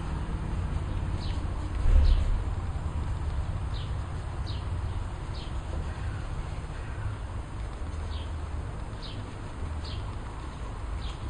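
A small bird chirps repeatedly in the background, short falling chirps at irregular intervals about once a second, over a steady low rumble. A thump stands out about two seconds in.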